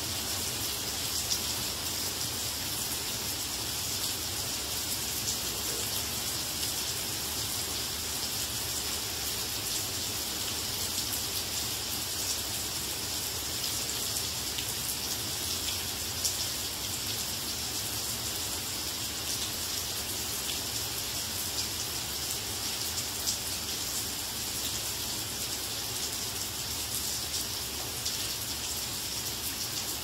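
Steady rain falling on garden plants: a continuous hiss with scattered sharper drop taps.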